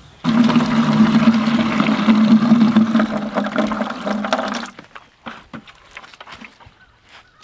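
Rainwater running from a rain-barrel hose into a plastic bucket, filling it, for about four and a half seconds, then stopping. A few faint knocks follow as the bucket is handled.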